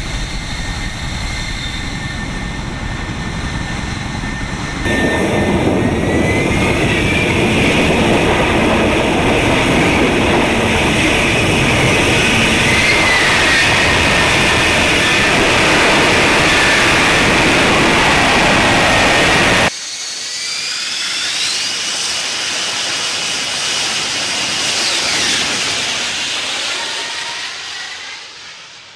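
Jet noise from an F-35B Lightning II running in short-takeoff/vertical-landing mode: its F135 turbofan gives a dense rush with a whining tone that glides up in pitch. The sound jumps louder about five seconds in, drops sharply at about twenty seconds, and fades out near the end.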